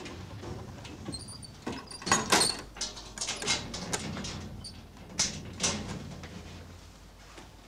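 Scrapes, clicks and squeaks of a door or panel being worked at by hand, over a low steady hum; the strokes start about two seconds in, are loudest then, and thin out toward the end.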